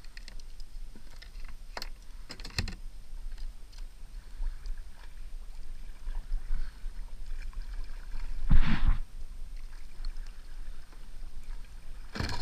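Fishing kayak on the water with scattered light clicks and knocks from gear and paddle against its plastic hull, and one louder knock about eight and a half seconds in.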